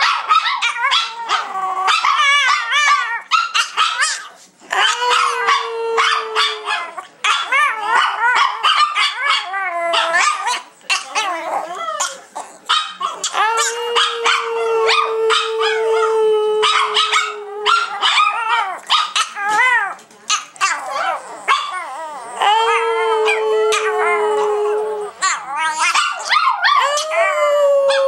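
Chihuahuas 'singing': small dogs howling together in wavering, yipping howls, broken now and then by a long steady held note.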